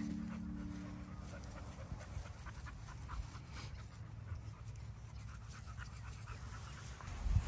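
A dog panting close to the microphone, with a low rumble underneath.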